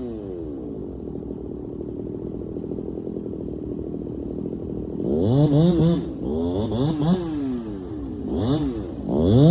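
Two-stroke chainsaw: the throttle is let off at the start and the engine winds down to idle, idles, is blipped three times, then is opened up to full speed again near the end.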